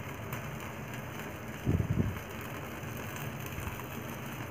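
Steady rushing of a gas stove burner on high flame, with light sizzling as butter is brushed onto chicken charring on a wire rack over the flame. A short low rumble comes about two seconds in.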